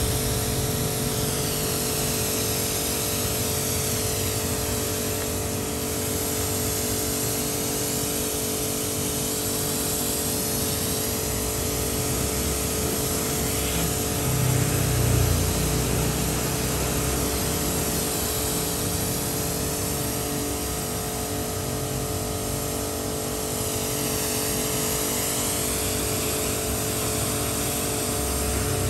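Pressure washer running: a steady motor-and-pump hum under the hiss of the water jet spraying over a motorcycle, briefly louder about halfway through.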